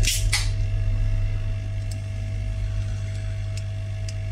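Steady low electrical hum, with two short scratchy scrapes right at the start and a few faint ticks from a precision screwdriver working the small screws of an iPhone 5s screen assembly.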